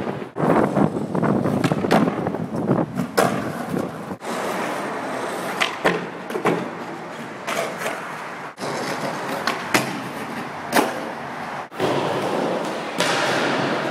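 Skateboard wheels rolling on concrete, broken by many sharp clacks of boards popping, landing and striking a ledge.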